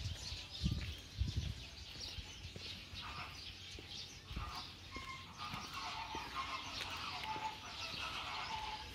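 Many birds calling at once: a steady mix of short high chirps, joined from about three seconds in by lower, repeated calls. A few low thuds near the start.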